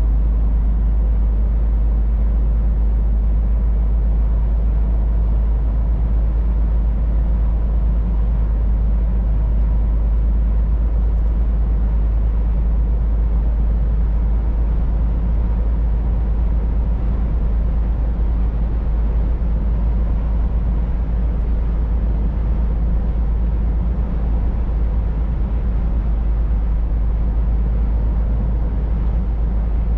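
Scania R500 truck cruising at steady road speed: a constant low rumble of engine, tyres and wind with no changes or separate events.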